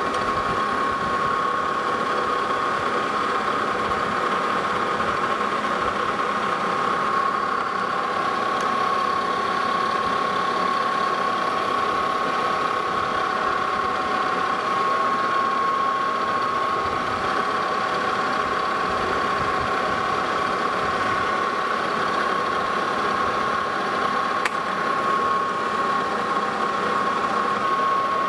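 Lodge and Shipley metal lathe running steadily under power while a hand-fed tool takes a light cut on a turned metal leveling foot, with a steady high-pitched whine over the running machine and a single small click near the end.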